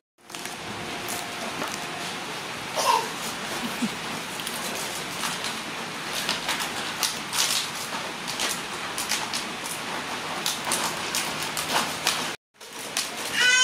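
Steady rain-like hiss with many light clicks and taps scattered through it, and a short falling squeak about three seconds in. The sound cuts out for a moment at the start and again near the end.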